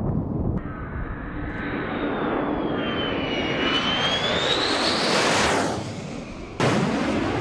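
F-15E Strike Eagle's twin jet engines roaring as it passes low overhead, with a high whine that dips and then rises in pitch as it goes by. Near the end a louder jet roar starts abruptly.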